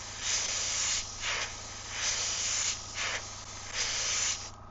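Airbrush spraying paint in four bursts of hiss, each about a second long, as the trigger is pressed and released.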